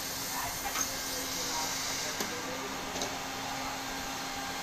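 Hot-air welding machine (LIUDU TOP3400C) running as it welds tarpaulin: a steady hiss from its hot-air blower over a low, even motor hum, with a few clicks.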